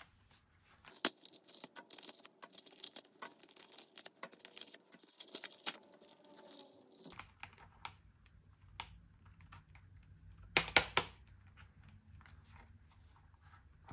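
Hands handling a leather trucker wallet on a wooden tabletop: irregular light clicks, taps and rustles of leather, with a quick burst of louder, sharper clicks about eleven seconds in.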